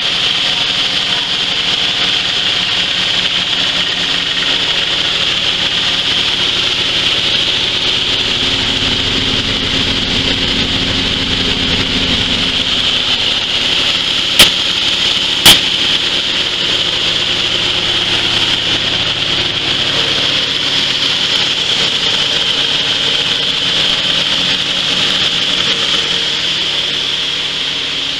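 Coffee huller driven by a small single-cylinder diesel engine, running steadily, with a constant rasping hiss of dry parchment coffee being rubbed and hulled inside the machine. Two sharp knocks about a second apart come roughly halfway through.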